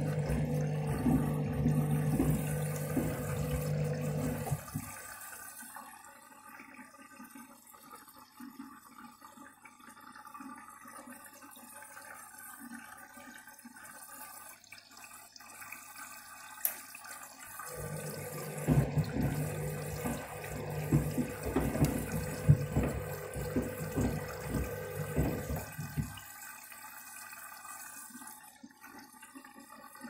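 Front-loading washing machine on a wash cycle with shoes in the drum: the drum turns for about five seconds with a steady motor hum and sloshing water, pauses for about twelve seconds with only faint dripping, then turns again for about eight seconds with sloshing and a few sharp knocks as the shoes tumble.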